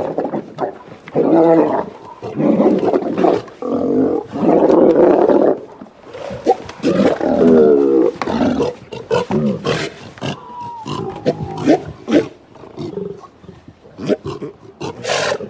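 Big cat roaring and growling repeatedly: a series of loud, rough roars with short pauses between them.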